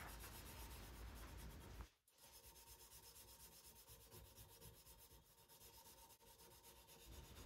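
Faint rubbing of an abrasive mesh cloth strip (Abranet) drawn quickly back and forth across a welded stainless steel exhaust collector, hand-polishing its edges smooth. The sound breaks off briefly about two seconds in, then carries on in quick, even strokes.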